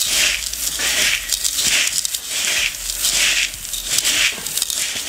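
A hand stirring dry pigeon feed (corn, peas and small seeds) in a plastic bucket. The grains rustle and swish in a steady rhythm of about three strokes every two seconds.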